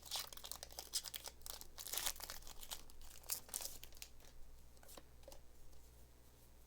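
Foil wrapper of a Pokémon trading card booster pack being torn open and crinkled by hand: a quick run of faint crackles that thin out after about four seconds, over a low steady hum.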